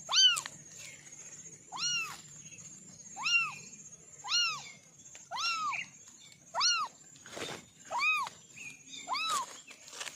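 Kitten mewing: about eight short, high calls, each rising then falling in pitch, roughly one a second.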